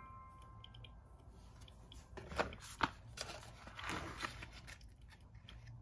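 Paper coffee bag rustling and crinkling as it is handled and set down on the table, with two light taps about two and a half seconds in.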